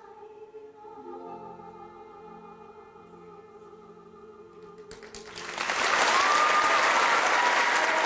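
Soft closing bars of a Broadway musical number, held notes of voice and orchestra fading out, then the theatre audience breaks into loud applause about five and a half seconds in.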